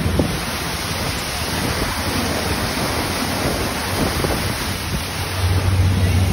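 Rushing, churning water of a motor yacht's wake at speed, with wind buffeting the microphone. A low steady hum comes in about five seconds in.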